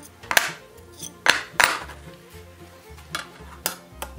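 Square steel plate washers set down one by one on a wooden workbench: several sharp metallic clacks, each with a short ring. Background music runs underneath.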